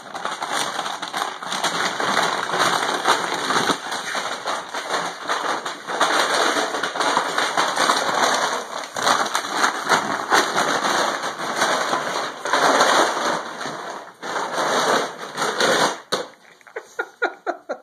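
Plastic dog food bag crinkling and rustling continuously as a pug puppy paws, bites and tosses it. Near the end the crinkling stops and a quick run of soft puffs follows, about four a second.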